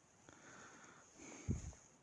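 Faint rustling, then a single dull low thump about one and a half seconds in.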